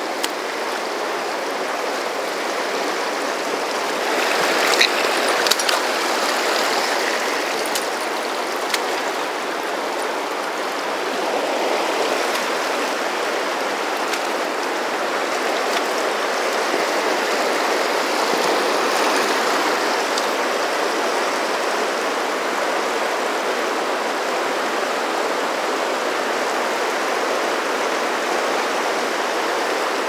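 Fast river water rushing over rocks and riffles, a steady, full rush. A few brief clicks stand out about four to nine seconds in.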